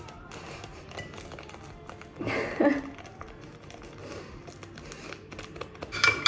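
Small sachet being torn open and crinkled by hand, with light rustling and clicks, and a short voice-like sound about two seconds in. Right at the end a spoon clinks against a drinking glass.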